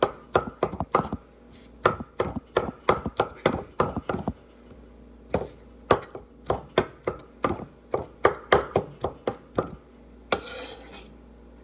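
Large kitchen knife chopping vegetables on a wooden cutting board: quick repeated knocks, about three to four a second, in two runs with a short pause between. Near the end comes a brief scraping sound.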